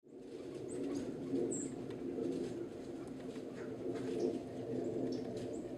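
Wild birds giving a few brief, high chirps over a steady low hum.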